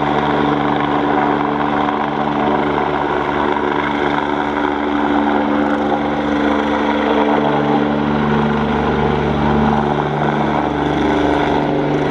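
Eurocopter BK117 twin-turbine helicopter climbing away after takeoff: steady rotor and turbine noise, with a few of its tones shifting in pitch partway through.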